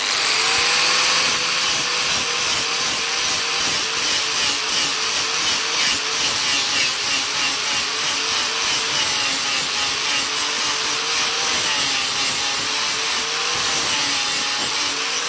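Angle grinder with a flap disc grinding down a built-up weld bead on a steel piece clamped in a vise. It starts right at the beginning and runs continuously, the motor's pitch dipping and recovering as the disc is pressed onto the metal.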